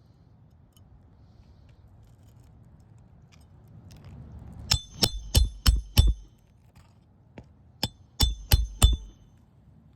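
Hammer driving roofing nails into an asphalt shingle: a run of five quick strikes about five seconds in, then four more a moment later, each with a short metallic ring.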